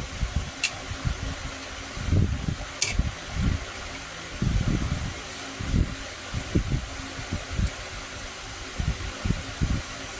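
Inverter welding machine's cooling fan running with a steady hum, under irregular low rumbles. Two sharp clicks, one about half a second in and one near three seconds.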